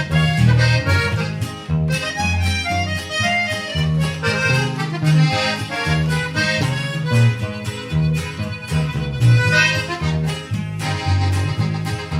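Norteño music played live: an accordion carries the melody over a bass line that moves in even steps. The passage is instrumental.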